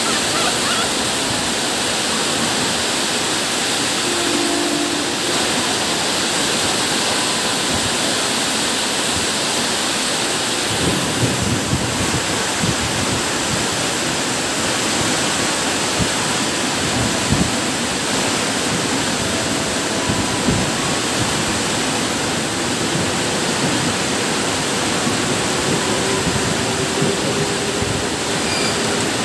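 Heavy rain pouring down steadily: a constant, even hiss of a tropical downpour on a wet open platform.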